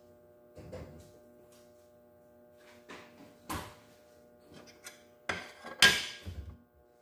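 Kitchen handling sounds: a few light knocks, then a short burst of clatter from a metal spoon and dishes, loudest about six seconds in, over a faint steady hum.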